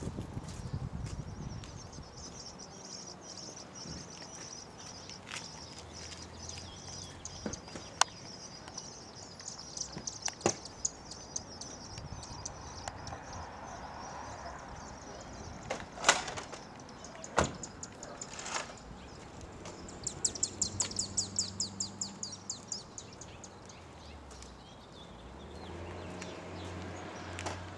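Songbirds chirping in quick repeated notes, densest about two-thirds of the way in, with a few sharp clicks and knocks scattered through; the loudest knock comes a little past halfway.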